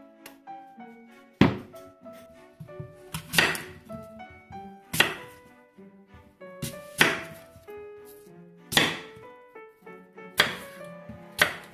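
Kitchen knife cutting through apples and knocking on a wooden cutting board, a sharp knock every second or two, over light background music.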